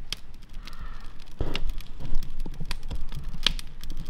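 Campfire crackling: burning wood giving off irregular sharp snaps and pops, a couple of them louder than the rest.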